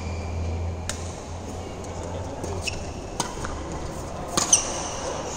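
Badminton rackets hitting a shuttlecock in a rally: sharp pops every second or so, the loudest a pair about four and a half seconds in, with short high squeaks. A steady low hum runs underneath.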